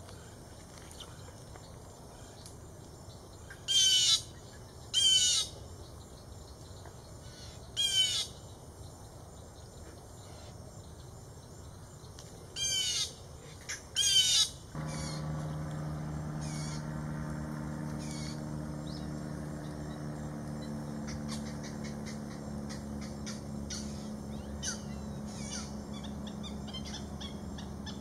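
Red-shouldered hawk giving loud, high, slurred calls, about five of them a few seconds apart in the first half. About halfway through, a steady low drone sets in and continues under faint chirps.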